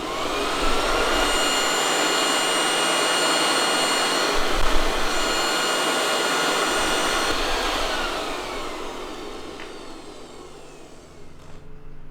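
Electric vacuum-type motor switched on: it spins up with a rising whine, runs steadily with a loud rushing of air, then is switched off about seven and a half seconds in, its whine falling as it winds down.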